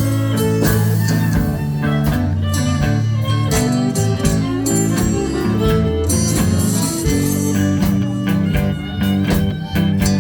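Live blues band playing an instrumental passage: guitar over a steady beat, with harmonica.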